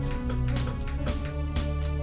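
Background music: a steady beat with sustained guitar and keyboard notes.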